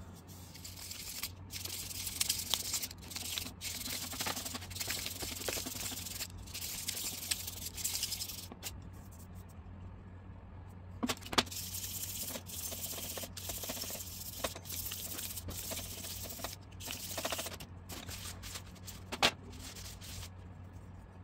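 Hands handling and rubbing a sanded resin 3D-printed wheel pattern: scratchy rustling in uneven stretches, with two sharp knocks, one about halfway through and one near the end.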